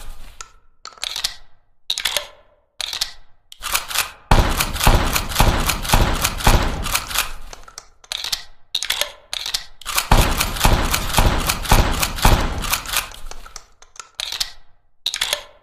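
Winchester Model 1887 lever-action shotgun sound effects: fast runs of sharp mechanical clicks and clacks lasting a few seconds each, broken by short silent gaps.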